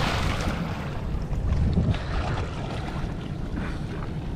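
Sea-Doo jet ski idling with a low, steady rumble, under wind buffeting the microphone and light splashing of water.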